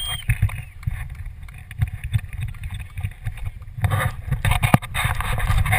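Wind buffeting the camera microphone: an uneven low rumble that swells in gusts near the end, with a single sharp knock of handling noise.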